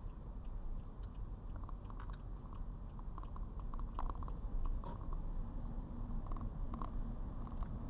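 Steady low rumble of a car driving, heard from inside the cabin, with irregular light ticks scattered over it.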